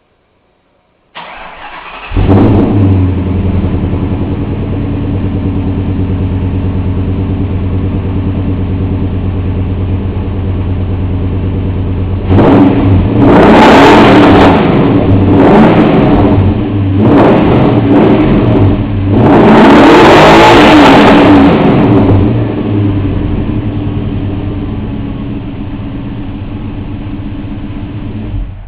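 Ford Coyote Aluminator 5.0 V8 cranks briefly, catches and settles into a steady idle through shorty headers, a Bassani x-pipe and a Magnaflow cat-back exhaust. It is revved several times, with quick blips and one longer rev near the middle, then drops back to idle and shuts off suddenly at the end.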